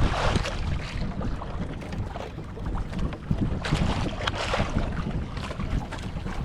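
Wind gusting over the microphone on a small boat at sea: an uneven low rumble with hissy surges.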